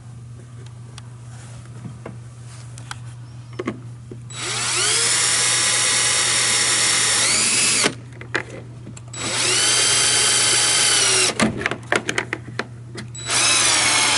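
Power drill with a Phillips bit driving screws through a plastic fender flare into a plastic cooler body: three runs of a few seconds each, the first about four seconds in, its whine rising as it spins up at each start. Sharp clicks and taps come between the second and third runs.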